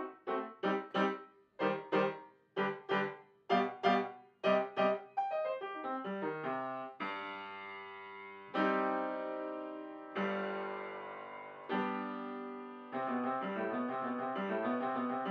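Background piano music: short, separate chords at first, then a falling run of notes, long held chords, and near the end a quick, even repeating accompaniment.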